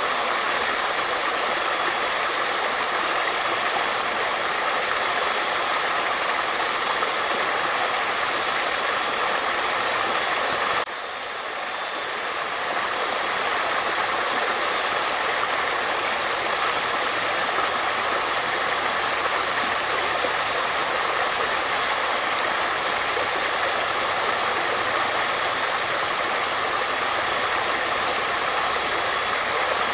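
Flowing water running steadily in an even rushing wash. About a third of the way in it drops suddenly and swells back up over a couple of seconds.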